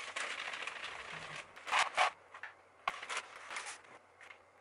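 Dry rolled oats poured from a plastic bag into a plastic tub, a steady rattling hiss for about the first second and a half, then several short rustles of the bag and a sharp click about three seconds in.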